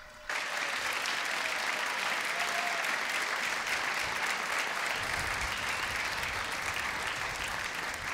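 Large audience applauding, starting suddenly a moment in and holding steady.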